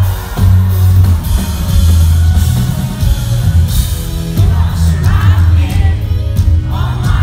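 Loud live rock band music: drum kit and heavy bass, with singing coming in about four and a half seconds in.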